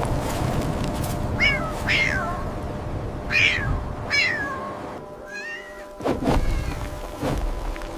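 Kitten meowing about five times, short high calls that rise and fall in pitch, over a low rumble.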